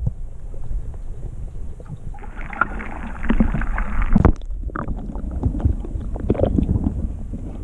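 Kayak paddle dipping and splashing in the water, with a single knock about four seconds in, over a low rumble of wind on the microphone.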